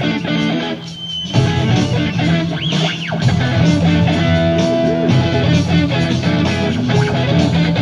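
Live rock music led by a Les Paul-style electric guitar, with the band's bass underneath. The music dips briefly about a second in, and the guitar slides its pitch up and down around three seconds in.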